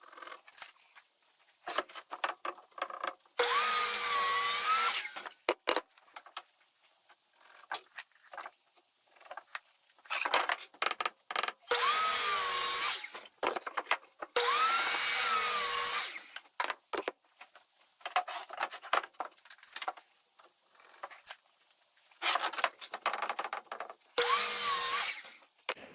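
Electric power saw cutting 5/8-inch plywood sides to length: four short cuts of about a second and a half each, the motor's pitch dipping as the blade bites and coming back up. Wood knocks and clatters as the boards are handled between cuts.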